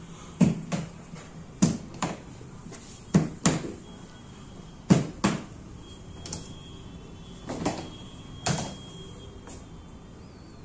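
Plastic hard-shell carrying case's snap latches being flipped open: four pairs of sharp clicks in the first five seconds, then two softer knocks as the lid is lifted.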